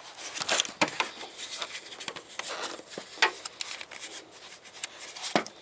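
Handling noise: rustling with a run of sharp clicks and light knocks, and a louder knock near the end.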